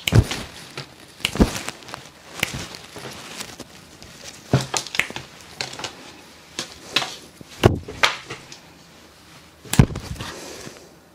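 Cloth rustling as a football shirt is handled and shaken, with sharp knocks and clicks every second or two.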